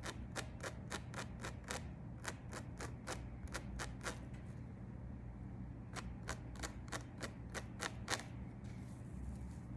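Tweezers clicking as hairs are plucked from a lace wig frontal: quick taps about four a second, in two runs with a short pause between.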